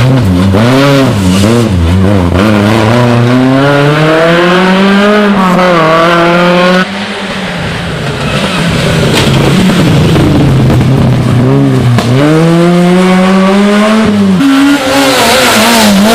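Rally car engines revved hard as cars pass one after another, the engine pitch climbing and dropping with each gear change and lift off the throttle. About seven seconds in the sound drops to a quieter, rougher stretch as another car approaches, then rises into hard revving again.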